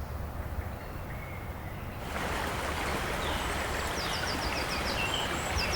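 Flowing stream water, a steady rush that comes in suddenly about two seconds in, with a bird giving a quick run of high chirps twice over it.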